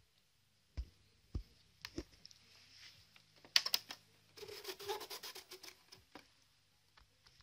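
Hands handling the parts and cabinet of a vintage Grundig Satellit 6000 portable radio. There are a few soft knocks, then a quick run of clicks about three and a half seconds in, then a second or so of scratching and rubbing.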